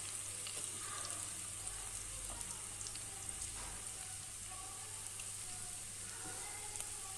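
Chopped onions frying in hot oil in a steel pan: a soft, steady sizzle with faint scattered crackles.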